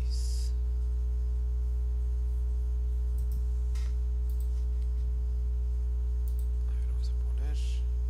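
Steady electrical mains hum with a stack of even overtones, picked up by the recording microphone. A few faint short clicks and breathy noises sit over it.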